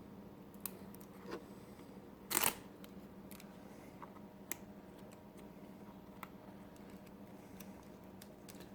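Quiet handling of small objects: a few light clicks scattered through, and one short rustle about two and a half seconds in, over a faint steady hum.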